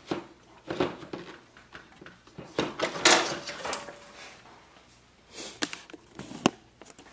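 Hard plastic clicks, knocks and scraping as a Pantum PD-219E toner cartridge is pulled up and out of a laser printer's cartridge bay, with a longer scrape about three seconds in.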